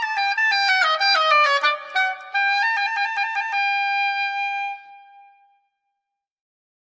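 Background music: a quick stepping instrumental melody that ends on a held note, which fades out about five seconds in, followed by silence.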